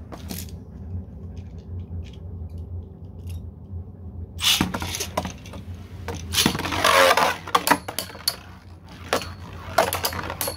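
3D-printed Beyblade spinning tops scraping and clashing in a stadium, with bursts of rattling clatter about halfway through and again near the end.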